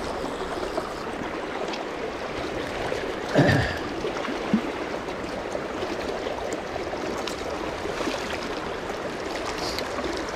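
River current running steadily, with a brief louder thump about three and a half seconds in and a smaller one about a second later.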